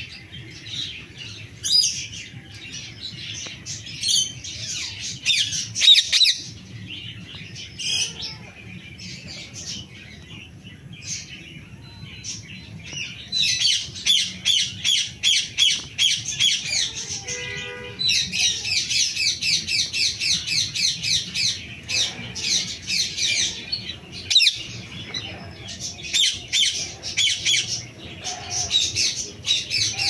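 Indian ringneck parakeet calling with shrill, high-pitched squawks: scattered calls at first, then long fast runs of repeated squawks from about halfway through.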